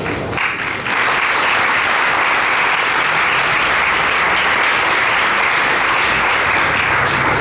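Audience applauding, building about a second in and holding steady before dying away at the end.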